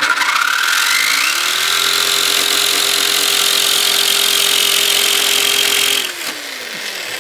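Jigsaw with a metal-cutting blade sawing through a sheet-metal PC case side panel, loud, with a lot of vibration. The motor comes up to speed about a second in, holds a steady pitch, then winds down with a falling tone about six seconds in.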